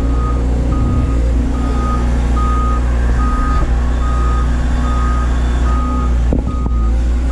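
Doosan DX180 excavator's diesel engine running steadily under a back-up alarm beeping at one pitch, a little over one beep a second.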